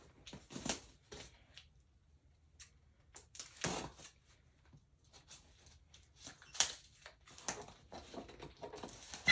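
Scissors cutting the packing tape along the seam of a cardboard shipping box: a string of short, irregular scrapes and snips of the blade on tape and cardboard.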